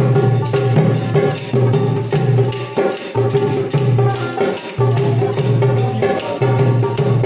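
Live Bengali folk music with no singing: small hand cymbals clink in a steady rhythm over a sustained low note and other instruments.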